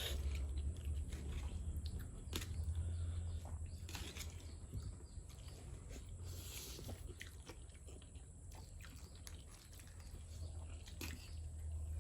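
Someone chewing a mouthful of fried noodles, with scattered small clicks and a short slurp-like hiss partway through.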